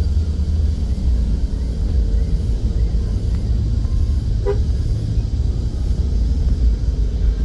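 Car driving along a road: a steady low rumble of engine and road noise, with a brief pitched tone about four and a half seconds in.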